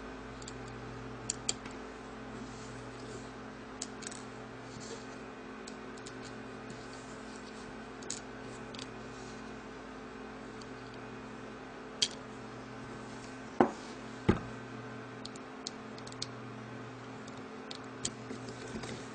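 Small scattered clicks and taps of a screwdriver and circuit board being handled on a hard drive as the replacement PCB is fastened on, with two sharper knocks about two-thirds of the way through. A steady hum runs underneath.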